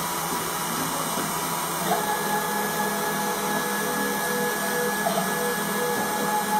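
Desktop CNC engraver running: a steady whir from its 775 spindle motor, with a whine from the stepper motors that shifts to new steady pitches about two seconds in and again around five seconds in as the machine changes moves.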